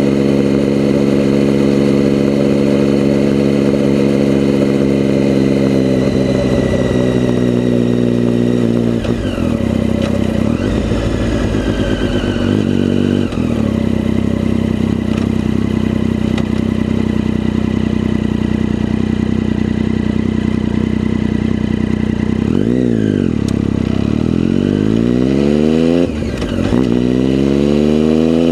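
Vehicle engine running under way, loud and close to the microphone. Its pitch holds steady, falls away about a quarter of the way in, then near the end drops and climbs again twice, like gear changes while accelerating. A steady high whine runs alongside.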